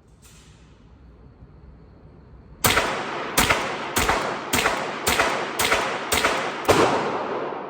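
Henry AR-7 semi-automatic .22 LR rifle firing eight shots in steady succession, about one every 0.6 seconds, starting nearly three seconds in, each shot trailed by a ringing echo.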